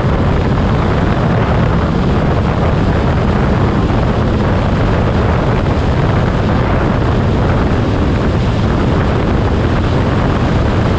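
Motorcycle cruising at highway speed: a loud, steady rush of wind over the microphone mixed with engine and road noise, heaviest in the low end.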